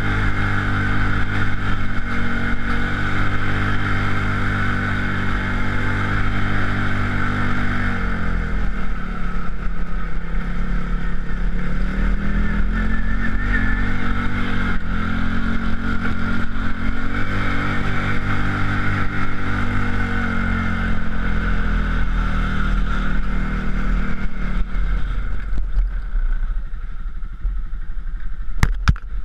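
TGB Blade 550 quad's single-cylinder four-stroke engine running under way over a rough track, its pitch falling and rising with the throttle, over a steady rush of tyre and wind noise. Near the end the engine drops to a low idle and there are a couple of sharp clicks.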